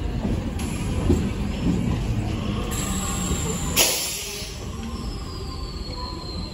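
Indian Railways passenger coaches rolling past a platform close by, a steady rumble and rattle of wheels and bogies. A brief loud burst comes about four seconds in, after which the sound is quieter, with a faint high whine sliding slowly downward.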